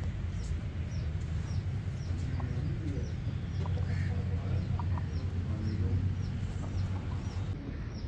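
Aseel chickens clucking over a steady low hum, with a short high chirp repeating about twice a second.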